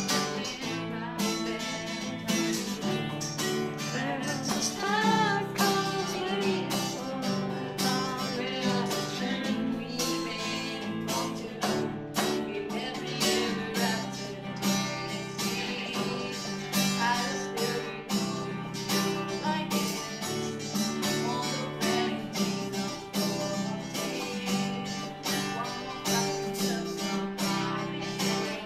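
Acoustic guitar strummed in a steady rhythm, with a voice singing along over the chords at times.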